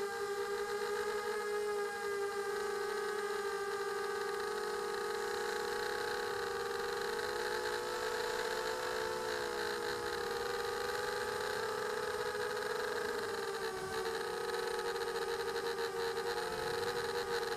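A small drone's electric motors and propellers, heard from its onboard camera: a steady buzzing whine whose pitch wavers slightly.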